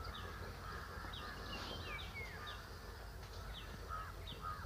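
Birds calling faintly in the background: many short, quick downward chirps, with a longer falling whistle about two seconds in, over a low steady hum.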